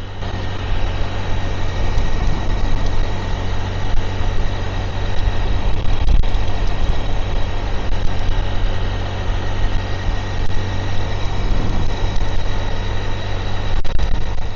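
Motorbike engine running steadily while riding, over a constant rush of road and wind noise.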